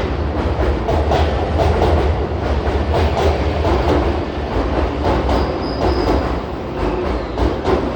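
Keihan electric train running along the track, heard from inside the car: a steady low rumble with repeated clicks of the wheels over rail joints.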